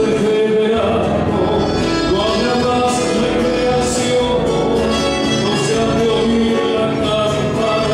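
Live folk band music: an accordion and acoustic guitars playing, with a man singing long held notes into a microphone.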